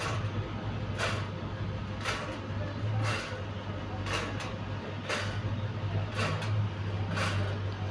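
Electric fan running with a steady low hum and a swishing scrape that repeats about once a second: the strange noise the fan is making.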